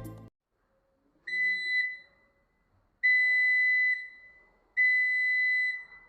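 Small electronic buzzer in a BC547 transistor laser-alarm circuit sounding three high, single-pitch beeps, the first short and the next two about a second long. Each beep is the alarm tripping as the laser beam falling on the light-dependent resistor is broken.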